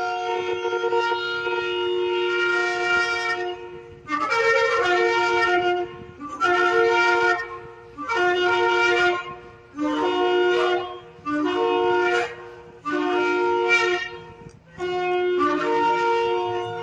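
Shofar blowing: one long blast, then a run of about seven shorter blasts of roughly a second each.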